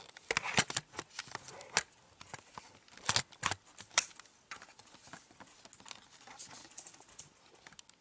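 Camera handling noise: irregular sharp clicks and light knocks as a handheld camera is moved about and repositioned, in two clusters, one in the first two seconds and another around three to four seconds in.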